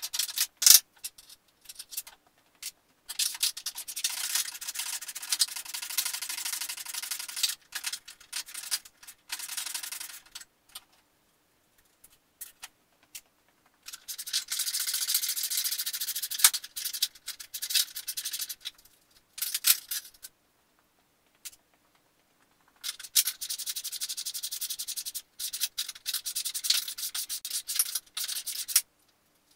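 Scraping and rubbing noise from hand work on a car's rusty front-end metal. It comes in three long, hissy stretches, separated by gaps with a few clicks.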